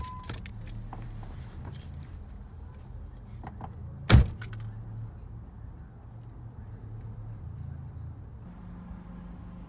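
Car door slammed shut about four seconds in, the loudest sound, after a few clicks and knocks of the driver handling the controls and climbing out. A faint, rapid high ticking and a low steady hum run underneath, and the ticking stops shortly before the end.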